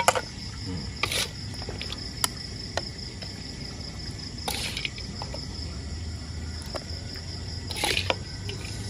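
Crickets chirping steadily, with a metal spatula scraping and clinking against a wok and a plate several times as food is lifted out.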